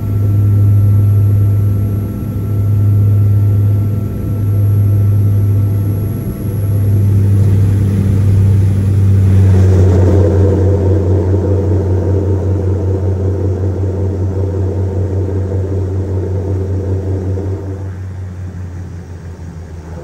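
Cabin sound of a Dornier 228's twin Garrett TPE331 turboprops on landing: a loud, steady low drone that swells and fades about every two seconds. About ten seconds in a rougher rushing noise joins, as the plane touches down and slows, and the sound then gradually dies down.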